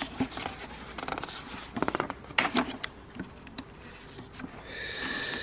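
Hand tools and parts being handled at an engine on a workbench: a few short runs of rapid clicks and some single light knocks, with a faint steady high tone near the end.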